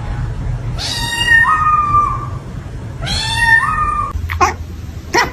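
Domestic cat meowing twice, two long drawn-out calls that step up in pitch partway through, followed near the end by two short sharp sounds.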